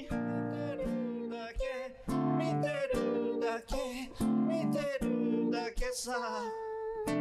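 A man singing a slow song while strumming chords on an acoustic guitar.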